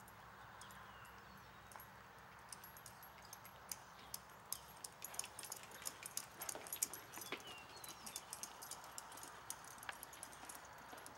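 A ridden horse's hooves on the sand footing of an arena, heard as a faint run of irregular sharp clicks, densest in the middle.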